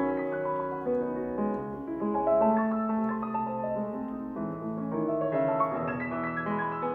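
Steinway grand piano played solo: a flowing classical passage of held, overlapping notes and chords in the middle register. A brighter, higher part comes in about five seconds in.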